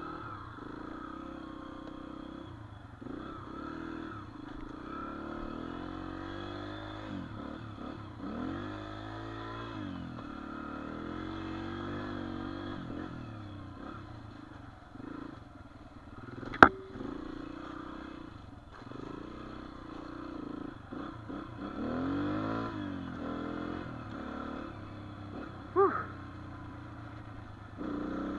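Dirt bike engine running under way, its pitch climbing and falling again and again as the throttle opens and closes through the gears. A single sharp crack a little past halfway is the loudest sound, and a shorter loud burst comes near the end.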